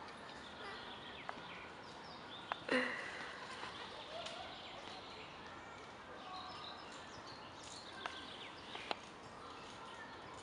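Faint park background with scattered bird chirps and a few sharp clicks. About two and a half seconds in, a short louder sound falls steeply in pitch.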